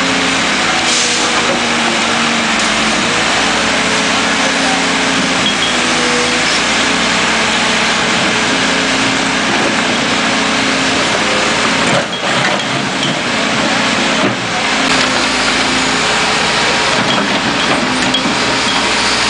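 Backhoe engine running steadily as the machine works its bucket through dirt, dipping briefly twice about two-thirds of the way in.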